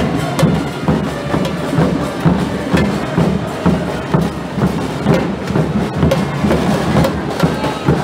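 Marching drums beating a steady rhythm, about two strong low beats a second, with sharp clacking strokes over them.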